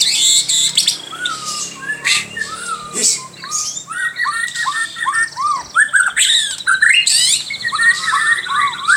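White-rumped shama (murai batu) singing a loud, varied song that its owner calls strange: quick runs of short arched whistles mixed with squawky notes, and a fast high rattle in the second half.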